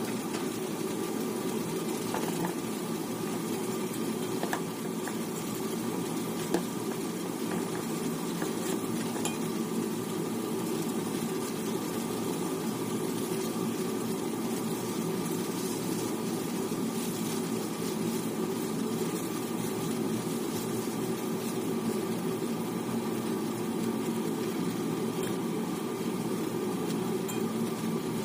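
Diced pork and mixed vegetables frying in a nonstick pan: a steady low rushing noise with a few faint pops.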